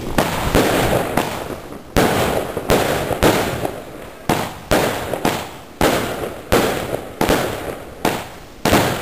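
Lesli Mc Thunder salute cake firing shot after shot, each bang ringing out briefly. The bangs come close together at first, then settle to about one every two-thirds of a second. The bangs are not very loud.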